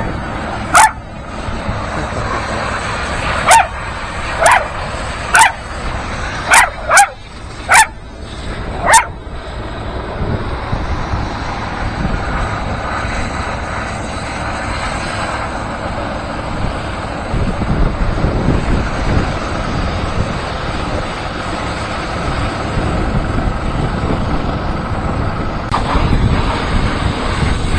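A dog barking about eight times in sharp, loud single barks over the first nine seconds, then a steady mechanical running noise for the rest.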